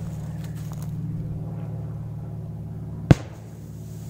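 A large firecracker set in sand going off with a single sharp bang about three seconds in. A steady low hum runs underneath.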